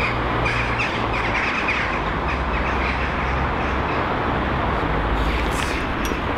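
A flock of birds calling in short chirps, mostly in the first two seconds, over a steady rumbling background noise.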